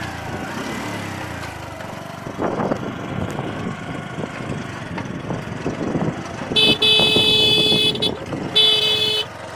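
Motorcycle riding over a rough dirt track, with steady engine and wind noise and knocks from the bumps. About six and a half seconds in, the horn sounds twice: a long honk, then a shorter one.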